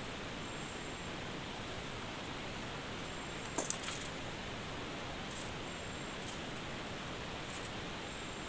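Steady hiss of forest background with faint, short high-pitched peeps every second or so. A brief rustle of a few sharp clicks comes about three and a half seconds in.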